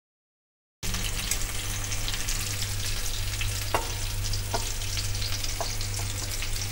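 Chicken seekh kebabs sizzling in hot oil in a grill pan, a dense steady crackle with a few sharper pops. It cuts in abruptly after a second of silence, over a low steady hum.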